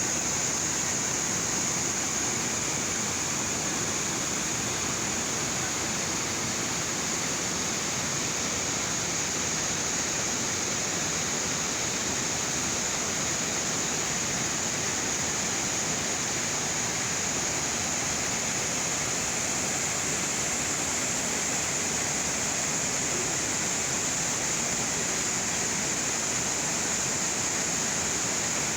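Waterfall pouring: a steady, unbroken rush of falling water, with a constant high-pitched hiss above it.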